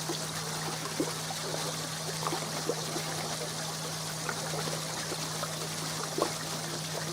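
Pumped pond water pouring and trickling steadily through a koi pond filter box, with a few small plops and a steady low hum underneath.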